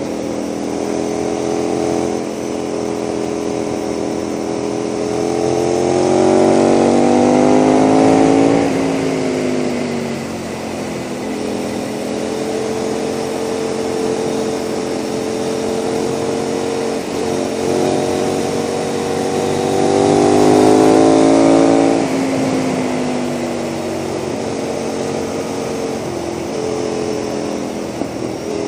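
KTM 990 SMR's V-twin engine through a Leo Vince exhaust, under way at road speed. It climbs in pitch twice, about six and about eighteen seconds in, and drops back as the throttle closes, running steadily in between over wind noise.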